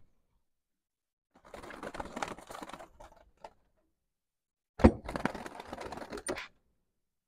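Wire pigeon cage rattling and clicking as a pigeon is handled inside it, in two bursts of about a second and a half each. The second burst opens with a sharp knock, the loudest sound.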